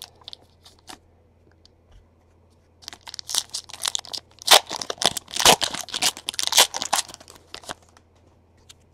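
Foil wrapper of a trading-card pack being torn open and crinkled by hand: a few faint rustles at first, then a dense run of crackling rips from about three seconds in, dying away near the end.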